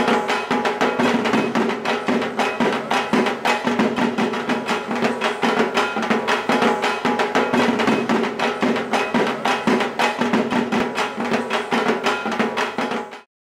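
Drum-led background music with fast, dense drum strokes over a steady pitched backing, cutting off suddenly near the end.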